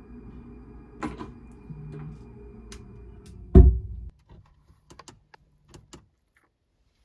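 Steady room hum with a light click about a second in, then a loud thump of a wooden cabinet door being shut about three and a half seconds in. After an abrupt cut come a few faint clicks of a metal fork against a plastic food container.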